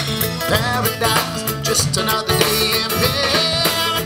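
Live country band playing an instrumental passage at the end of a song: guitars over bass and drums.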